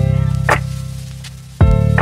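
Background music: a slow beat of deep kick drums and snare hits under a sustained bass line and held keyboard chords.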